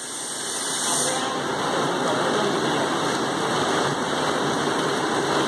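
Synthetic PP twine extrusion line running: a steady hissing machine noise with a faint low hum, building up over the first second and then holding steady.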